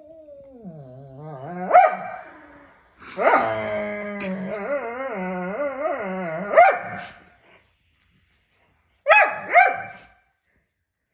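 Borzoi growling and snarling over its food puzzle feeder at the other borzoi, a long wavering growl that rises in pitch, with sharp barks about two seconds in and again near six and a half seconds. After a short silence come two quick barks about nine seconds in.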